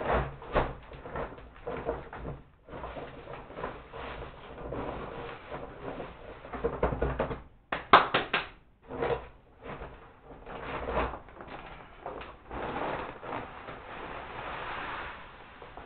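Irregular knocks, scrapes and rustling from handling a small electric feed mill and feed sacks, with a cluster of sharp knocks about eight seconds in.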